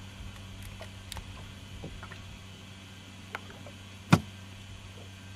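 Boat-side sounds under a steady low hum: a few light clicks and one sharp knock about four seconds in.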